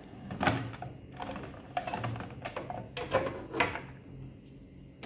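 Plastic clicks and rattles from the blue locking levers of the NPG-59 toner cartridge and drum unit inside a Canon imageRUNNER 2006N copier being worked by hand: about half a dozen sharp clicks spread over the few seconds.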